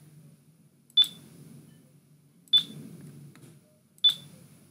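Three short, high touch-press beeps from the HMI screen simulator, about a second and a half apart, each sounding as a recipe entry or button on the simulated touch panel is clicked.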